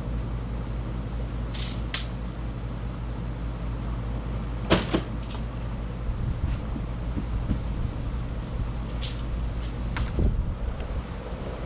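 Diesel engine of a Kubota KX71 mini excavator running steadily, with a scattering of sharp knocks, the loudest a little under five seconds in.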